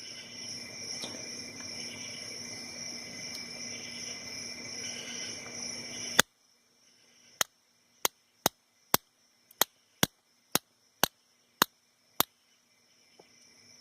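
Ten sharp taps of a bump hammer on a bump key in a Sesamee 551 padlock, about two a second, trying to jar the pins open. They follow about six seconds of steady background noise that ends in a single click.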